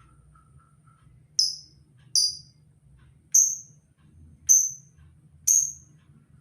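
Labet bird calling: five short, sharp, high-pitched calls about a second apart, each ending in a quick fading tail, played as a lure call.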